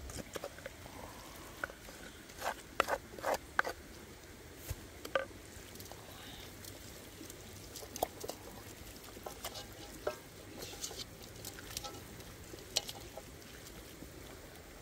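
Hands rubbing a wet paste of crushed red chilies into a whole raw chicken: soft wet squelching with a scatter of short clicks and taps, several in quick succession a few seconds in.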